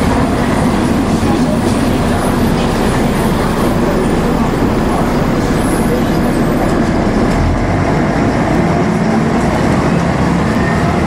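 Volvo B10M bus under way, heard from inside the passenger cabin: steady engine and road rumble, with passengers' chatter.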